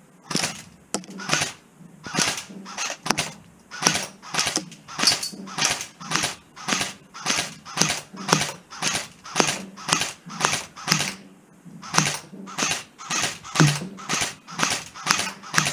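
Airsoft AK-47 firing single shots in quick, steady succession, about three a second, with one short pause about eleven seconds in.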